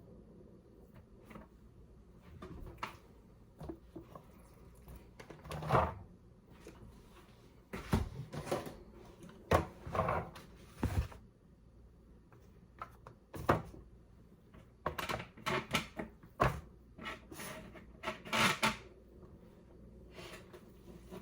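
Irregular knocks, clicks and rubbing of hands handling food containers and meat packaging while raw dog-food meals are portioned, with a few louder clattering clusters.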